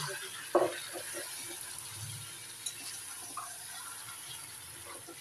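A metal spatula stirring and scraping a pan of braised mutton curry with potatoes. There is one sharp knock against the pan about half a second in and a few lighter clinks after it, over a steady low hiss.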